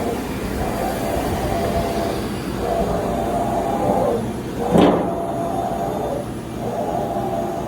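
Blohm Planomat 612 CNC surface grinder running: a whine of several tones repeats in a cycle of about two seconds, running for about a second and a half, then stopping briefly before starting again. A single sharp clank comes about two-thirds of the way in.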